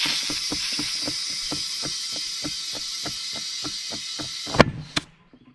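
Compressed air hissing into a tubeless tractor tire, with a rapid ticking about five times a second, then a loud pop about four and a half seconds in as the soaped bead snaps onto the rim, and the air cuts off soon after.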